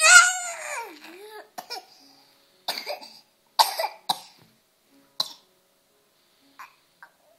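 A small child coughing: a loud high vocal sound falling in pitch opens it, followed by a string of short, sharp coughs about a second apart.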